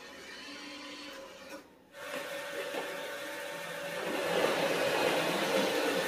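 Robot vacuum running in a heap of Rice Krispies cereal: a steady mechanical whir that starts after a brief drop about two seconds in and grows louder about four seconds in.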